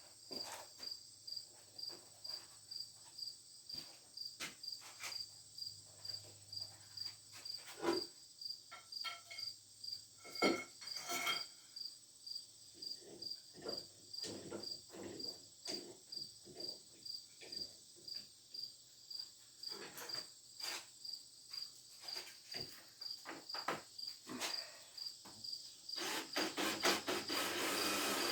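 A cricket chirping steadily in evenly spaced chirps, over scattered sharp clicks and knocks of hand work on a metal pulley, which thicken into a denser run of noise near the end.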